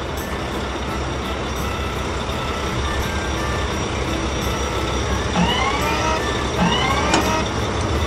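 Wheel loader engine sound effect running steadily as the loader drives, with two short rising chirps about two-thirds of the way through.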